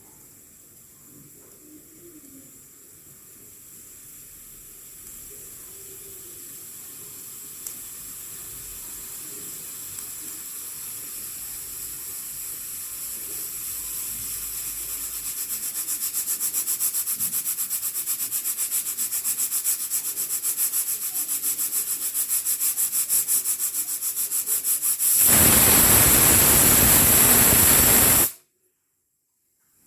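Hawkins pressure cooker building pressure: a hiss of steam at the vent weight grows steadily louder and breaks into a fast flutter. About 25 seconds in, the whistle blows as a loud rush of escaping steam for about three seconds, the sign that the cooker has reached full pressure, then cuts off abruptly.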